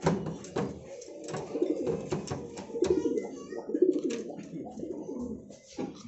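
Domestic pigeons cooing steadily in a small loft, with several sharp clicks and knocks from the wire-mesh cage doors being handled.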